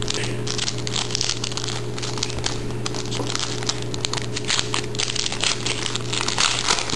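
Rustling and crackling of trading cards being flipped through by hand, with many quick, sharp slides and crinkles.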